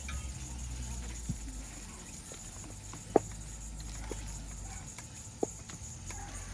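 A few short, sharp taps, the loudest about three seconds in, over a steady low rumble and a steady high-pitched insect drone.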